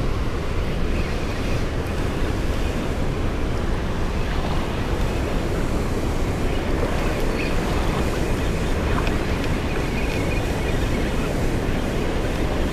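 Steady, loud rush of water pouring through a spillway and churning the river below it.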